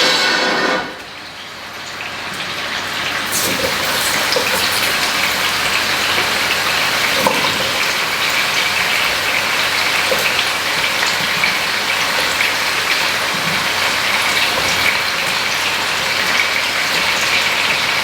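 Grouper and chopped mushrooms frying in hot olive oil in a pan: a steady sizzle that swells over the first few seconds, then holds, with a few sharp pops.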